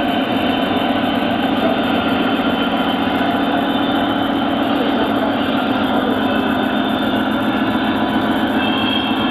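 O scale model freight train rolling past on three-rail track, with a steady, even rumble of wheels on the rails and running motors.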